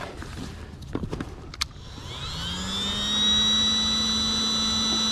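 A few clicks of handling, then about two seconds in a handheld electric air pump starts, its whine rising as the motor spins up and then running steadily. It is pumping air into a float tube's inflation bladder through its valve.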